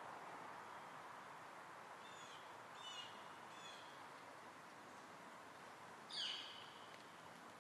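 Faint bird calls over a quiet hiss: a few short, high, falling chirps in the middle and one louder falling call near the end.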